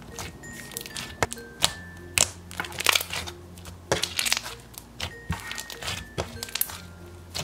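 Slime packed with foam beads and marshmallow beads being squished and pressed by hand, crackling and popping in irregular clicks. Soft background music plays underneath.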